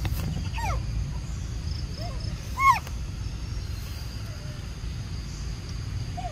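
Macaques giving a handful of short squeaky calls that fall in pitch, the loudest about two and a half seconds in. Underneath runs a steady low rumble and a faint high insect drone.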